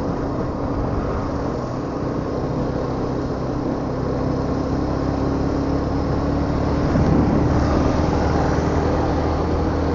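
Two-wheeler engine running with wind and road noise while riding, picked up by a helmet-mounted action camera's microphone. It is a steady rumble that swells a little about seven seconds in.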